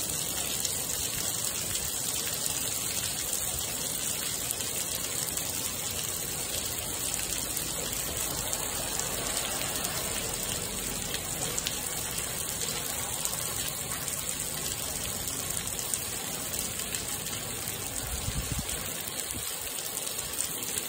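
Heavy rain falling steadily on wet pavement, drops splashing, with water pouring off a roof edge in streams.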